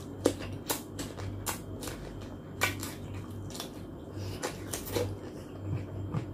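Close-up crunching and chewing of raw cucumber: a string of crisp crunches, about two to three a second.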